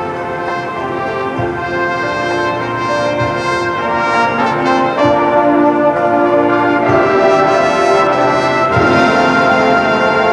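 Marching band brass playing sustained chords that swell louder through the middle, with low drum hits about every two seconds.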